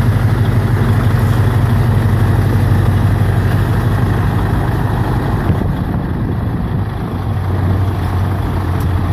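Scania 143H 420 tractor unit's 14-litre V8 diesel idling steadily with a deep, even hum. It turns a little quieter about five and a half seconds in.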